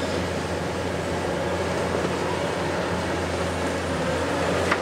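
Diesel engine of a Hitachi 870 long-reach demolition excavator running steadily, a constant low hum under a broad machine rumble, with a single sharp click near the end.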